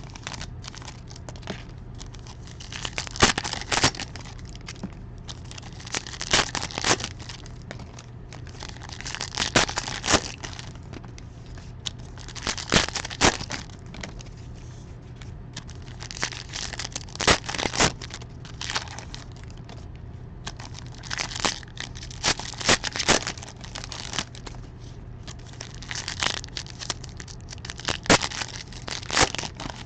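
Plastic-foil wrappers of baseball card packs being torn open and crinkled by hand, in bursts every couple of seconds with sharp crackles, over a steady low hum.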